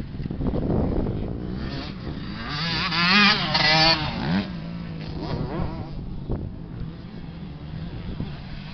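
Motocross dirt bike engines revving across the track, pitch rising and falling with the throttle. The loudest pass comes about three to four seconds in, with quick throttle blips and a sharp rise, then a steadier, quieter engine drone.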